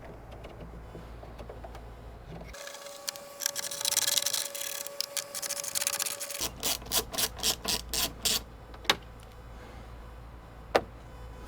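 A hissing rush with a steady hum for about four seconds, then a hand ratchet clicking about eight times at roughly four clicks a second as a mounting bolt is turned, and two more single clicks near the end.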